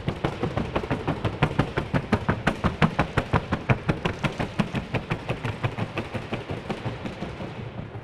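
Colombian criollo horse's hooves beating out the trocha gait on a wooden sounding board: a quick, even run of sharp knocks, about six a second, starting suddenly and fading near the end.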